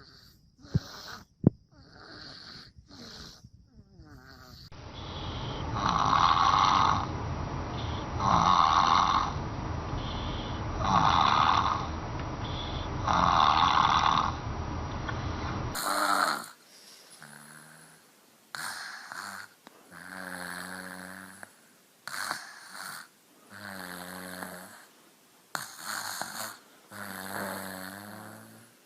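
Babies snoring in a run of short clips: first a few quick snorts, then four loud snores about two and a half seconds apart, then, from about halfway, a series of shorter, higher-pitched snores with pauses between them.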